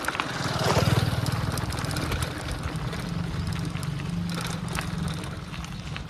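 A motor vehicle engine running steadily nearby, loudest about a second in, with light scattered clicks over it.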